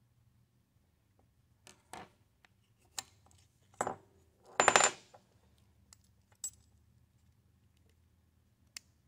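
Small brass parts clicking and clinking against each other and a wooden block as a model cannon's trunnion strap and pin are fitted by hand. There are a handful of separate clicks, and the loudest is a quick rattle of ticks about halfway through.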